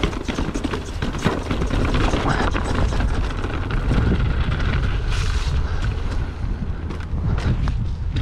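Mountain bike riding downhill over rocks and then gravel: wind buffeting the microphone in a steady low rumble, tyres rolling over stones, and the bike rattling with scattered sharp knocks.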